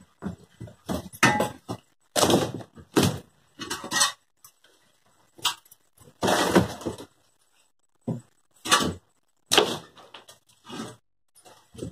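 Shovel digging into dry dirt and debris: a series of irregular scrapes and dumps as clods are scooped and tossed, with a few sharper knocks of the blade against wood.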